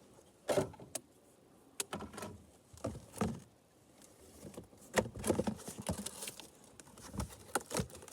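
Irregular clicks, knocks and rustling of chainsaw parts and packaging being handled and taken out of a box.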